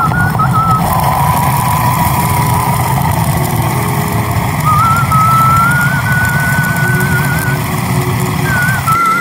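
Food processor motor running, chopping and blending wild mallow greens and chickpeas into a paste, with a whine that wavers in pitch as the load shifts.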